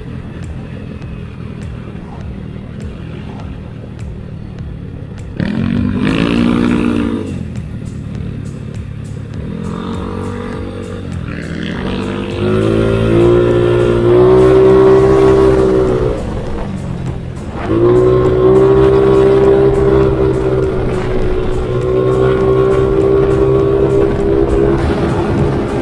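Motorcycle engine at speed with steady road and wind noise. About five seconds in, the revs climb. They hold high and steady, drop away briefly midway, then rise and hold steady again.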